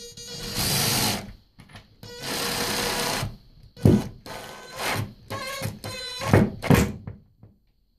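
Power drill driving a screw through a towel bar's metal mounting bracket into a heavy-duty drywall anchor. It makes two longer runs of about a second each, then a string of short bursts as the screw is snugged down against the bracket.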